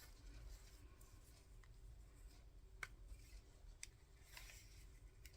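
Faint rustling of lace and paper being handled, with a few light clicks, the clearest about three and four seconds in.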